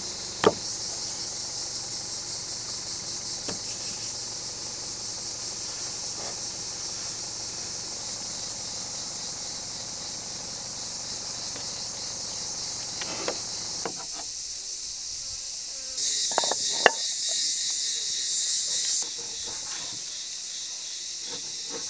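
Steady high-pitched insect chorus, louder for a few seconds near the end. A few sharp knocks of a knife striking a wooden cutting board while raw lamb is cut.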